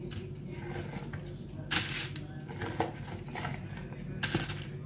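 Small potatoes being set down by hand on parchment paper in a foil-lined baking pan: short crinkling rustles of the paper, the loudest about two seconds in and another near the end, over a steady low hum.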